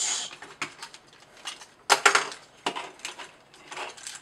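Clicks and clacks of an articulated Fansproject Columpio toy figure's parts being moved and snapped as it is transformed by hand, with the loudest cluster of clicks about two seconds in.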